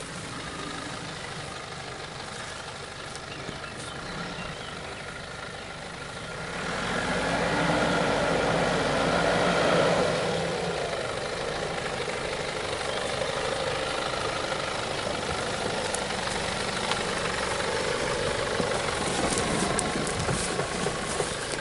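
Nissan Patrol 4x4's engine running at low speed as it crawls along a rutted dirt track; it grows louder about seven seconds in, then holds steady, with a few light clicks near the end.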